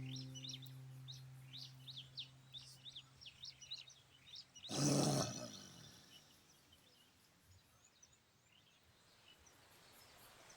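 Small birds chirping rapidly over a fading held music note. About five seconds in comes a brief loud noisy burst, after which only faint, sparse chirps remain.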